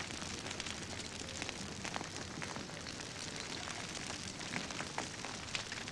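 Burning vegetation and a wooden pole crackling as a lava flow reaches them: a dense run of small irregular snaps over a steady rush of noise.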